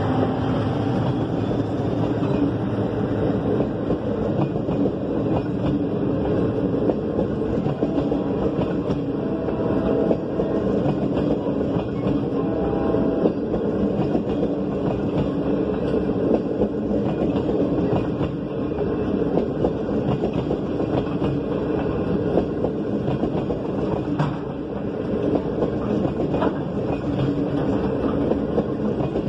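Passenger train rolling steadily past, its wheels clattering over the rail joints.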